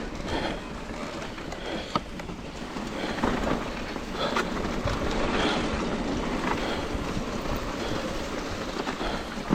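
2021 Trek Rail 9.7 electric mountain bike running downhill on a dirt trail: steady tyre and wind noise on the microphone, with a few sharp knocks and rattles from the bike as it goes over the ground.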